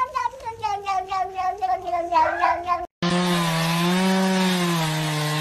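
A tabby cat, stroked along its back, gives a long, fast-wavering meowing cry that breaks up and rises at the end. About three seconds in it cuts off and a steady droning musical tone over hiss takes over.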